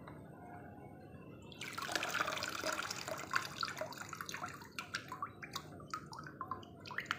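Watery grass-pulp slurry poured through a sieve: the liquid starts to pour through about a second and a half in, then thins to a steady run of drips and trickles as the pulp drains in the mesh.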